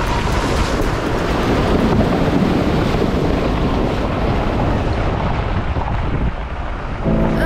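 A four-wheel-drive vehicle driving on a gravel track, its rumble mixed with wind buffeting the microphone mounted on the vehicle's side.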